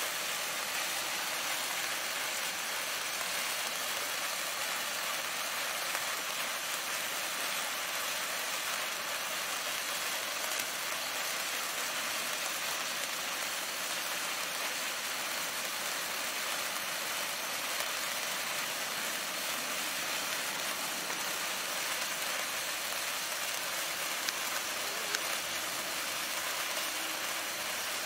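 Several wood-stick gold sparklers burning, a steady fizzing hiss with a few faint crackles.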